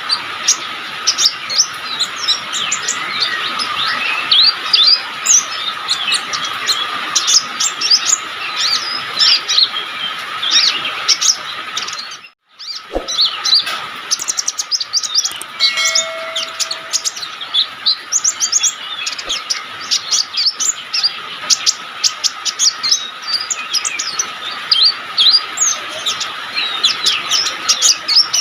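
Konin bird singing vigorously: a rapid, unbroken stream of high chirps and twitters over a steady thin tone, with a brief break about twelve seconds in.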